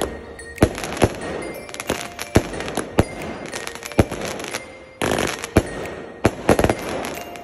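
Aerial fireworks bursting overhead: a string of sharp bangs, roughly one or two a second and sometimes in quick pairs, with crackle between them.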